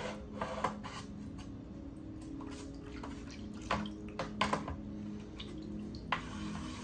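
Wet whetstones being handled over a stainless-steel tray: several clacks of stone against the tray and bamboo stone holder, and water dripping from a lifted stone into the tray. The last knock, about six seconds in, is a stone being set down on the holder.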